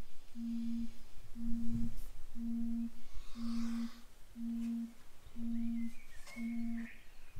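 A low, steady beep sounding seven times, about once a second, each beep about half a second long. A brief high squeak sounds near the end.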